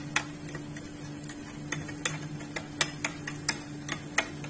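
Metal spoon clicking and scraping against a small bowl in irregular light taps, a couple a second, while spice masala and lemon juice are stirred into a paste. A steady low hum runs underneath.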